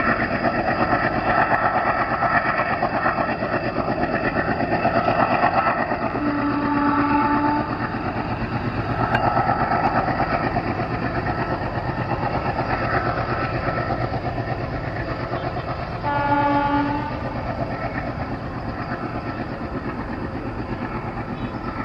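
ALCo-built WDG-3A diesel locomotive's 16-cylinder engine chugging hard, a rapid, even throb that runs on steadily. The locomotive's horn sounds twice in short blasts, about a third of the way in and again about three-quarters of the way in.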